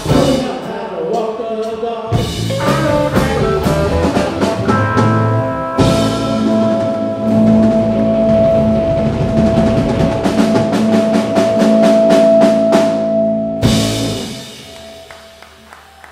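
Live rock band with electric guitars, electric bass and drum kit playing, a long held note ringing over steady cymbal hits. A final loud hit comes about fourteen seconds in, then the band stops and the sound dies away.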